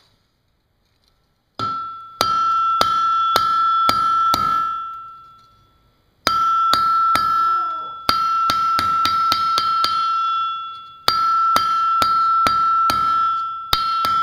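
Hand hammer forging a red-hot steel bar, an old file being drawn into a knife, on an anvil: three runs of quick blows, about three a second, starting about one and a half seconds in, with short pauses between. The anvil rings with a clear, steady tone that carries between strikes and dies away in each pause.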